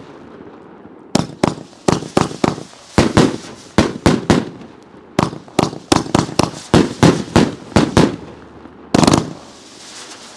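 Rodeo Clown grand finale firework cake firing a rapid volley of loud, sharp bangs as its shots break overhead, several a second. There is a short lull about eight seconds in, then one more loud bang.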